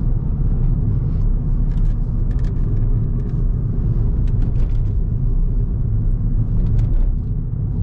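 Cabin of a moving Ford New Fiesta 1.6 manual: steady engine and road rumble, with scattered light clicks and rattles from the dashboard panel vibrating.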